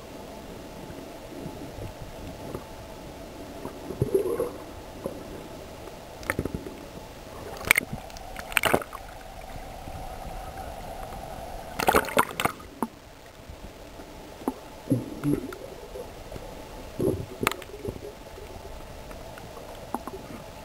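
Muffled water sounds of a camera held underwater while snorkeling: sloshing and gurgling around the camera, with a few sharp splashes through the middle as it breaks the surface and goes back under.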